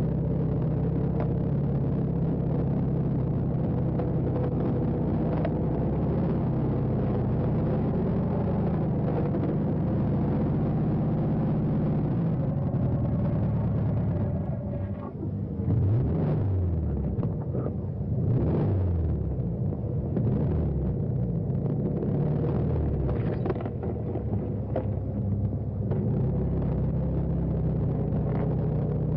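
Car engine running steadily with a low rumble. About halfway through, its pitch falls and rises several times, as in revving.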